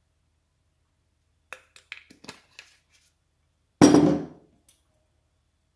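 A few light clicks and taps, then a heavy glass bottle of olive oil set down with a loud thud on a wooden countertop about four seconds in.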